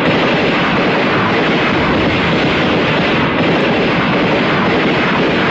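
A loud, steady rushing roar with no clear pitch, holding level throughout.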